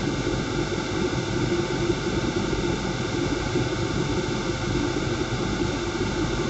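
Small benchtop wind tunnel's fan running at a steady speed: a constant rush of air with a steady hum.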